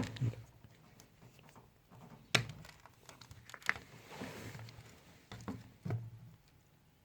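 A few scattered plastic knocks and clicks as the washing machine's filter access cover is opened and handled.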